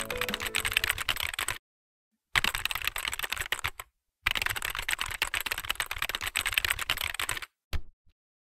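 Computer-keyboard typing sound effect: rapid key clatter in three runs, broken by short gaps about one and a half and four seconds in. It stops about seven and a half seconds in, with a couple of last single clicks.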